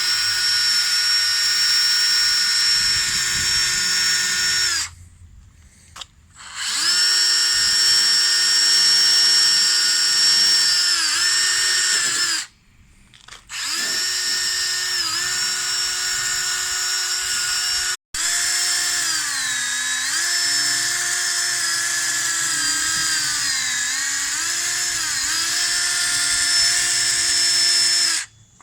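Handheld electric power tool stripping rust from a metal ATC rack: a steady motor whine that runs in three long spells with short stops, its pitch sagging briefly each time it is pressed into the work, most often near the end.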